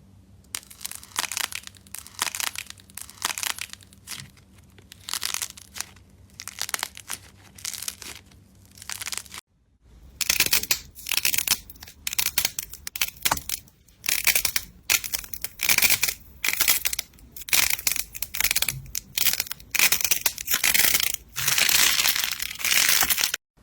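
Hands squeezing and pressing slime, making a run of short crackly squishes about one every half second to a second. About nine seconds in, a sudden cut leads to faster, louder strokes.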